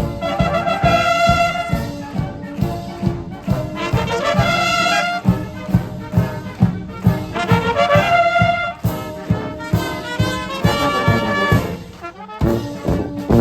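Military band playing a march outdoors: brass carries the tune over a steady marching drum beat.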